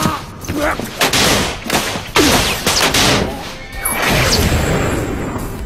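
Animated action sound effects: a rapid, loud run of crashes and impacts, with falling whooshes about two and four seconds in.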